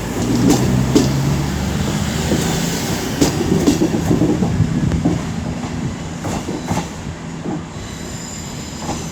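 A Class 158 diesel multiple unit running in and slowing, its engine hum under the clicking of wheels over rail joints, fading. A faint high brake squeal comes in near the end.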